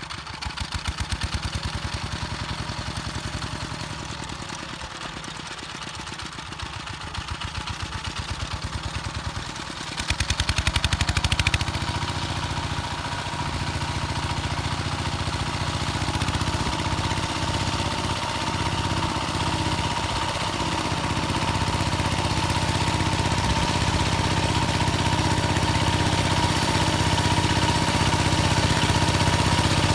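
The engine of a homemade motor-tractor built from a walk-behind tractor, running at a slow, evenly pulsing idle. About ten seconds in it revs up and runs louder and steadier, and a steady whine joins it.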